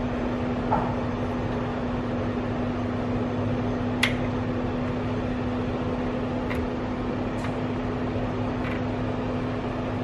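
Steady machine hum with a constant low tone, and several light clicks from multimeter probe tips being pressed onto the battery terminals, the sharpest about four seconds in.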